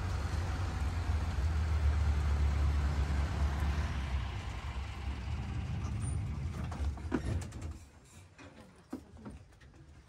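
Engine of a small tourist road train running with a steady low rumble, which dies away about three-quarters of the way through, leaving a few light clicks and knocks.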